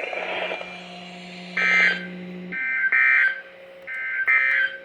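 EAS SAME end-of-message digital data bursts played through a weather radio's speaker, marking the end of the NOAA Weather Radio required weekly test. They come as several short, harsh buzzing bursts about a second apart, starting about a second and a half in, over a low steady hum that stops midway.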